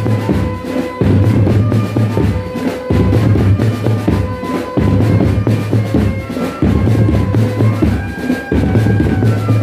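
Loud drum band music playing a dangdut tune: a steady drum beat over a deep bass line, with held melody notes above.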